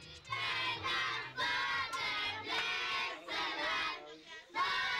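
A group of children chanting loudly together in drawn-out phrases, with a brief pause about four seconds in.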